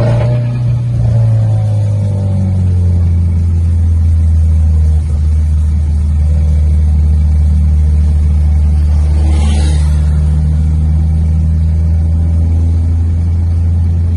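Vehicle engine and road noise at a steady cruise, heard from inside a car: a constant low drone, with a short rushing noise about nine and a half seconds in.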